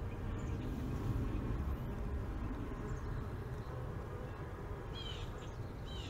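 Honeybees buzzing steadily around an open hive of bee-covered frames, with a short bird chirp about five seconds in.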